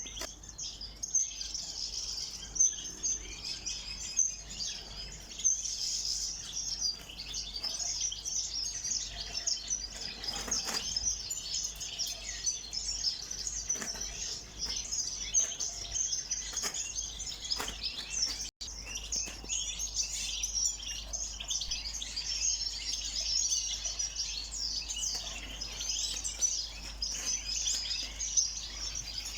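A flock of small ornamental cage birds chirping and twittering together continuously, many high, short calls overlapping, with a few soft knocks among them.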